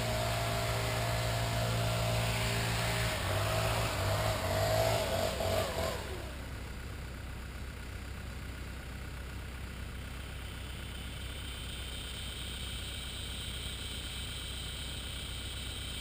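An engine running steadily, rising briefly, then winding down and shutting off about six seconds in, leaving a quieter steady background.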